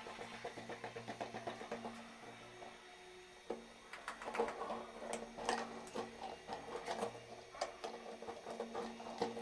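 Plastic toilet-cistern fittings being handled: a quick, even rattle of clicks as the plastic fill valve is twisted home in the tank wall, then irregular sharp plastic clicks and knocks as the float ball and arm are fitted. A faint steady hum runs underneath.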